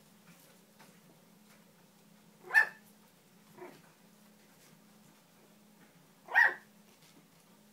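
Puppy barking: two short, high-pitched barks about four seconds apart, with a fainter bark about a second after the first.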